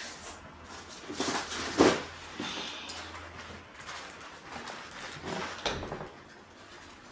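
Scattered knocks and rustling of someone moving about and fetching a paper shopping bag, with one sharper knock a little under two seconds in.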